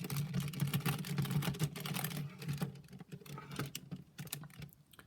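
Plastic layers of a Siamese Rubik's Cube (five cubes fused together) clicking and clacking as they are turned quickly through a repeated down-over-up-back move sequence. The clicks thin out and almost stop near the end.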